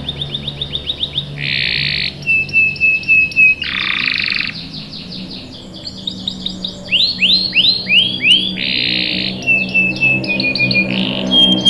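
Domestic canary singing a long song of fast repeated trill notes, buzzy rolls and short held whistles, changing phrase every second or so.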